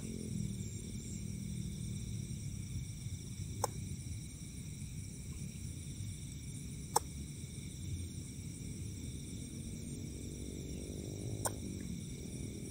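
Steady night chorus of insects, several high unbroken trills at once, over a low rumble, with three short sharp clicks spread through it.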